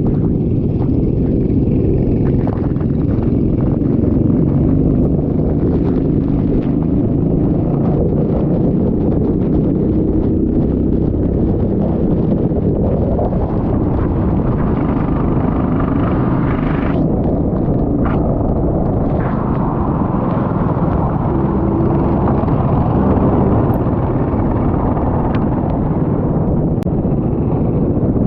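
Go-kart engine running at racing speed, its sound heavily buffeted and muddied by wind rumbling on the microphone.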